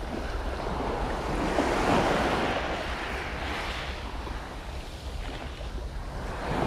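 Sea waves washing on the shore, one swell of surf building to its loudest about two seconds in and easing off, with a low wind rumble on the microphone.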